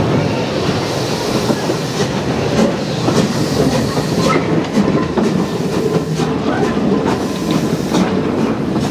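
BR Standard Class 4 2-6-0 steam locomotive 76079 rolling slowly past at close range, tender first: a steady rumble and hiss of the moving engine, with wheels clicking and clanking over rail joints and points, the clicks coming more often from about four seconds in.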